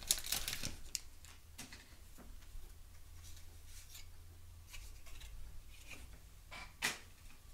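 Wax-paper wrapper of a baseball card pack crinkling as it is torn open, then soft rustling and light ticks of cardboard cards being thumbed through by hand, with one sharper tick near the end.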